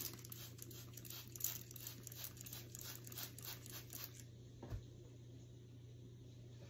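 A quick run of scratchy rustling strokes, several a second, for about four seconds, then a single soft thump.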